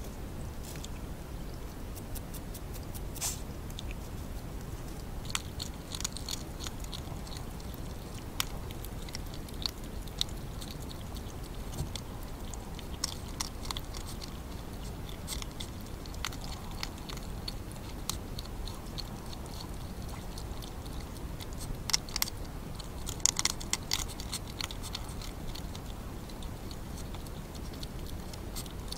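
European hedgehogs crunching dry pellet food from feeding bowls: irregular sharp crunches and clicks that come in busier runs a few times, over a steady low background hiss.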